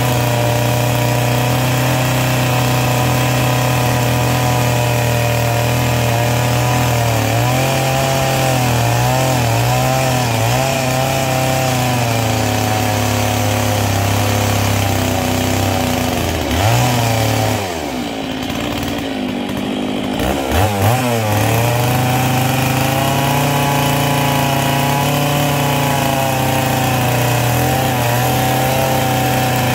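Stihl 660 two-stroke chainsaw running at high revs as it cuts into a paulownia log, its pitch wavering under load. About 17 seconds in it briefly revs higher, drops back toward idle for a few seconds, then revs up again and carries on cutting.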